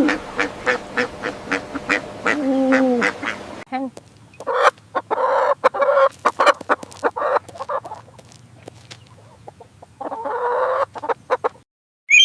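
Duck quacking in a rapid series of short calls for the first three and a half seconds. Then the sound changes to another bird recording, with two bursts of harsher calls mixed with clicks and a quieter clicking stretch between them.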